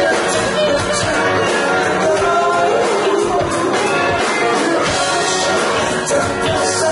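Live rock band playing at full volume: electric guitar and a singer's voice over the band.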